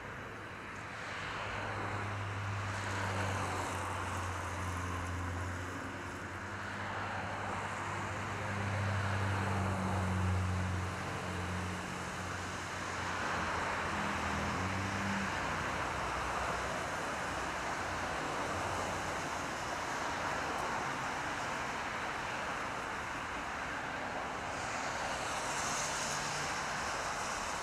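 Road traffic on a wet, slushy road: a steady rush of tyres from cars passing. For the first half there is also a low steady hum, which stops about halfway through.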